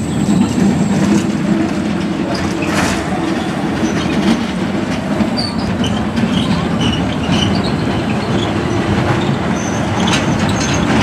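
Small children's roller coaster train running around its steel track: a steady, loud rumble of its wheels on the rails, with a few faint high squeaks in the middle.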